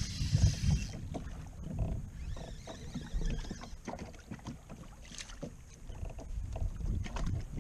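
Water slapping and sloshing against a plastic fishing kayak's hull on open sea: irregular low thumps and rumble, with a few sharp knocks.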